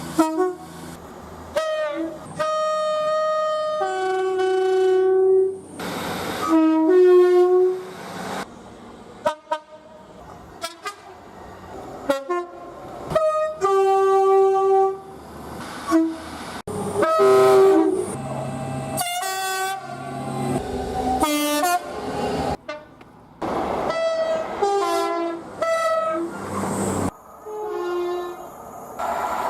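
Train horns sounding one blast after another, many of them two-tone horns giving a pair of notes. The blasts have steady pitches that change from one to the next, with abrupt breaks between them and train running noise in the gaps.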